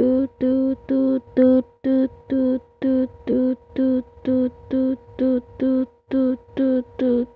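A rapid, evenly repeating two-pitch electronic beeping, about two beeps a second, each stepping between a low and a higher note, over a faint steady hum.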